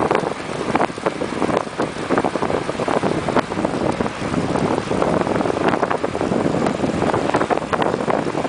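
Wind buffeting the microphone of a bicycle-mounted camera while the bike is ridden along a paved road, a continuous loud rushing broken by frequent short irregular knocks.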